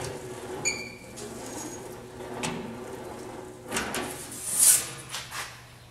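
Sheet-metal panel being worked through a slip roller and lifted off it: a series of metallic rattles, knocks and flexing sounds, the loudest and brightest about three-quarters of the way through, with a short ringing tone near the start.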